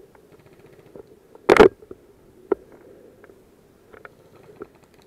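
Footsteps and gear rattle on a dry pine-forest floor, with light ticks and clicks throughout. There is one short, loud burst of noise about a second and a half in, and a sharp click a second later.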